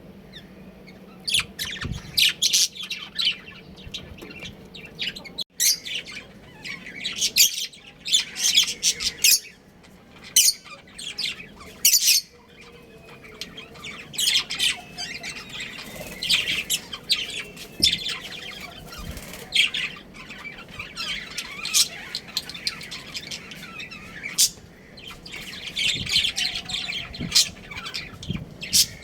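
Budgerigars chirping and chattering: a busy stream of short, high, squawky calls that starts about a second in and keeps going.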